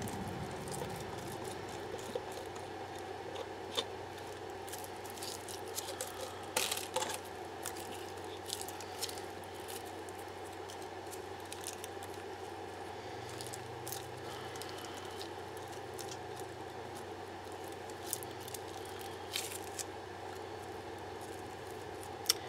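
A stir stick working through resin and iridescent film shards in a clear plastic cup: a few soft clicks and scrapes of the stick against the cup, scattered through a steady low room hum.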